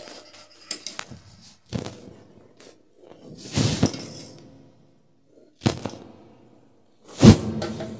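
A metal wire skimmer knocking against a steel pot of hot water as boiled gujia are lifted out: a few separate knocks, the loudest near the end, with a longer wash of water splashing about halfway.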